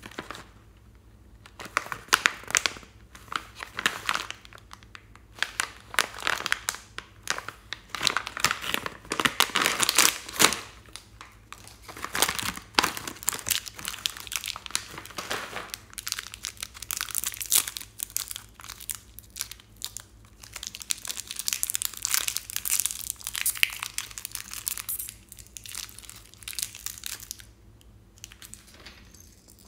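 Plastic snack packaging crinkling: a large snack bag and the small plastic wrappers of chocolate-covered candies being handled and opened, with many irregular, sharp crackles that die down near the end.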